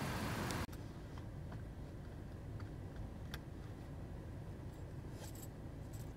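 Outdoor traffic noise that cuts off abruptly under a second in. A quieter low steady hum follows, with a few faint scattered clicks.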